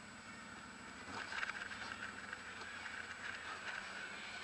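ATV engine running slowly with a steady low hum, as the quad creeps down an icy slope. From about a second in, a louder crackling crunch of tyres on snow and ice joins it.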